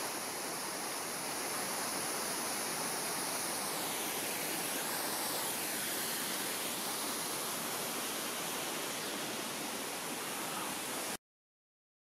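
Waterfall on a mountain stream: water rushing steadily, then stopping abruptly near the end.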